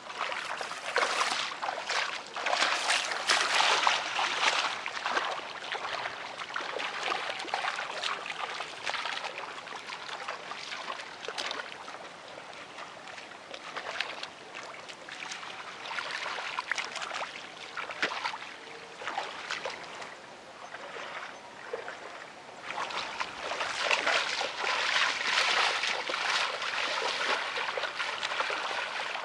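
Bare feet sloshing and splashing through shallow muddy water in a flooded rice paddy, an irregular run of wading steps, busiest near the start and again over the last few seconds.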